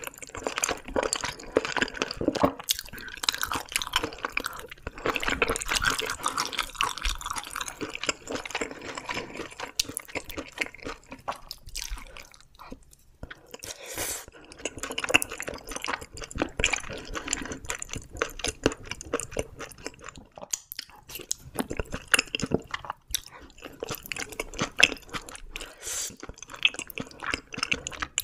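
Close-miked wet chewing and slurping of wide glass noodles in a thick spicy sauce, with many small sticky mouth clicks and smacks.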